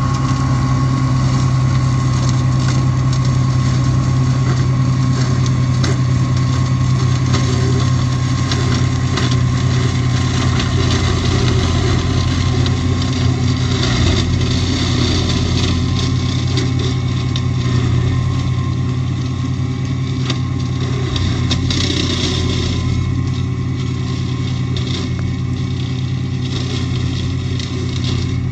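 Same Explorer II 60 Turbo tractor's diesel engine running steadily under load, driving a Maschio Giraffe L 170 side-arm flail mulcher as it chops vegetation, with scattered short knocks through the steady drone.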